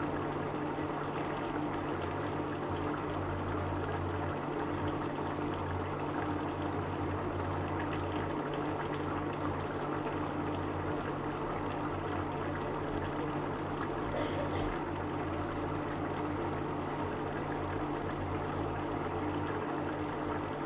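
Egg curry gravy simmering in a pot, a steady bubbling hiss.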